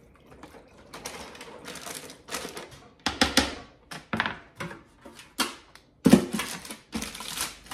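Crinkling aluminium foil and short tapping handling noises, then the electric roaster oven's lid set down onto the foil-lined roaster with a loud clatter about six seconds in, followed by more foil crinkling.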